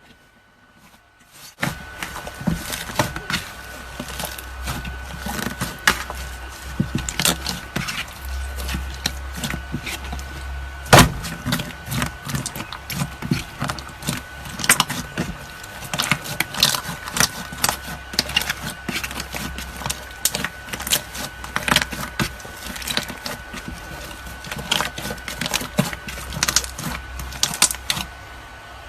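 Slime being worked by hand, squeezed, pressed and stretched, giving a dense, irregular run of sticky clicks and pops over a steady low hum, starting about one and a half seconds in. One louder snap comes near the middle.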